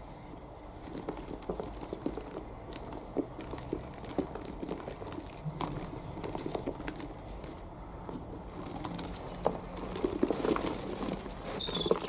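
Rustling and light knocking from hands handling a cloth bird bag in a bucket, busier and louder near the end. A small bird gives a short high call about every two seconds.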